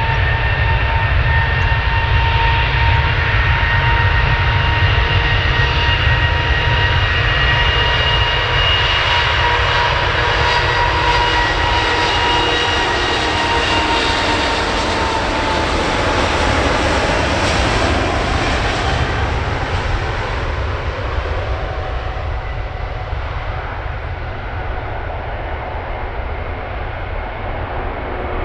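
Emirates Airbus A380's four jet engines at takeoff thrust as it accelerates down the runway past the listener, with a deep rumble and a steady high whine. About halfway through, as the aircraft goes by, the whine drops in pitch and the sound is at its fullest. The sound then eases slightly as it lifts off.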